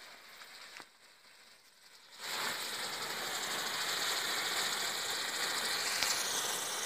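Small ground spinner firework (mini Camellia Flower) spinning and spraying sparks: a quieter fizz with a few crackles, then about two seconds in it flares into a loud, steady hiss.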